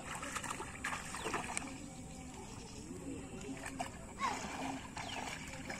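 Bare feet wading through shallow water, splashing and sloshing in several short bursts.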